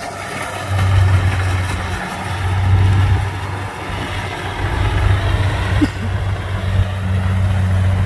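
Engines of rice-harvest machines running steadily with a low hum that swells and eases in loudness: a tracked rice-sack carrier close by and a Kubota DC-70 combine harvester cutting rice farther off.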